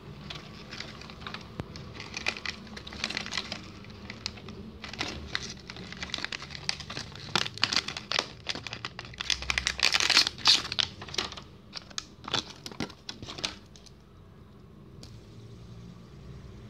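Clear plastic wrapping around a fidget spinner crinkling and crackling in quick, irregular bursts as it is handled and unwrapped, loudest about ten seconds in. The crinkling stops a little before the end, leaving a faint steady hiss.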